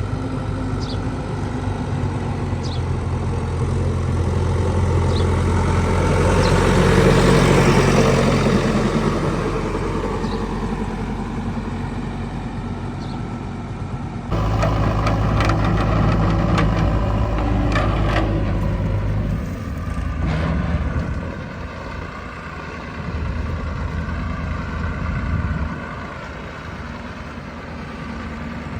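Heavy diesel engine of a backhoe loader or tractor working. It idles, then revs up under load about six to nine seconds in before settling. After an abrupt change near the middle it runs on with a few clanks and rises and falls in engine speed.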